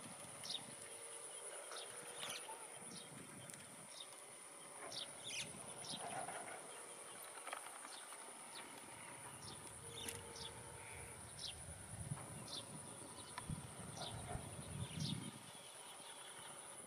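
Steady high-pitched insect trilling in grassland, with many short, falling high chirps scattered over it. Low rustling of movement through grass comes and goes in the second half.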